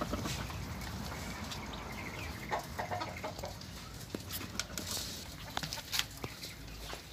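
Caged quail calling in short clucks and peeps, with scattered sharp clicks and taps among them.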